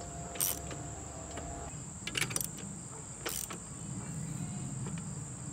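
Socket wrench with a 24 mm socket turning a cart's wheel axle nut to tighten it, giving a few scattered sharp clicks over a steady high-pitched drone.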